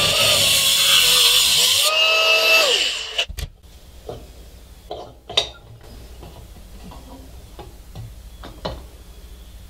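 An angle grinder's cutoff wheel cutting through brass drain tubing held in a vise, its motor whine sagging under load before it winds down about three seconds in. After that come a few light knocks and clicks as the brass tube is handled.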